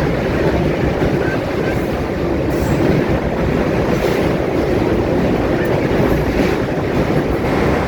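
Train running on rails: a steady loud rumble with a few faint clacks.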